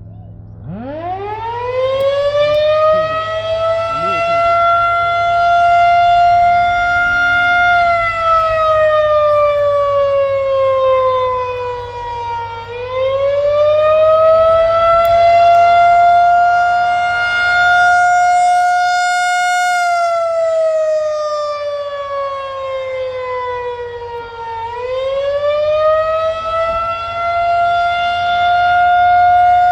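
Federal Signal 2001-130 outdoor warning siren winding up from a stop and sounding the Attack signal. Its loud tone climbs to a high pitch and holds briefly, then falls partway and climbs again, rising and falling twice in slow sweeps of about twelve seconds.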